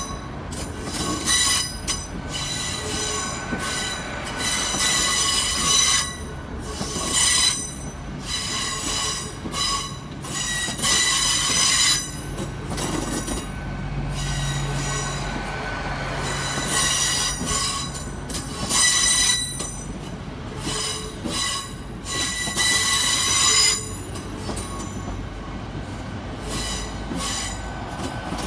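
GWR Class 800 bi-mode train moving slowly past the platform, its wheels squealing on the rails in repeated high-pitched bursts every second or two, over a steady low drone.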